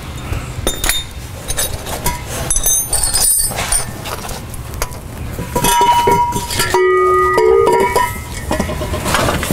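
Metal clinking and clanking of tools and the catalytic converter's exhaust pipe being handled under a car, with short high rings from struck metal. About six seconds in, a few louder held tones sound for about two seconds.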